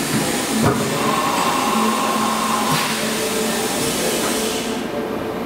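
Haas UMC-750SS five-axis machining center running behind its closed enclosure door: a steady rushing hiss with a faint whine that drops in pitch about halfway. The hiss stops near the end.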